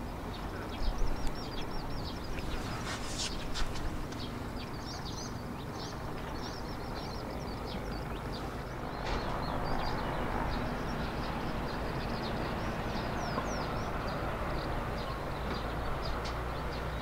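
Cessna T206H amphibian's turbocharged six-cylinder engine and propeller running at low power as it taxis on the runway after landing, a distant rumble that grows somewhat louder about halfway through as it turns. Many small birds chirp throughout, and there are a few sharp clicks about one and three seconds in.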